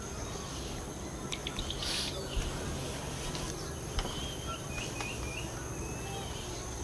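Insects trilling steadily at a high pitch, with a bird giving short chirps in the second half and a few faint clicks.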